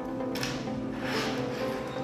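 Background music with sustained, shifting notes and swelling whooshes.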